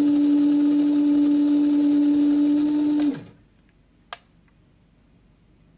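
Stock motor and gears of an RGT Adventurer mini crawler with a 10-tooth pinion, running at a steady speed with one even whine, then winding down to a stop a little after three seconds in. A single sharp click about a second later.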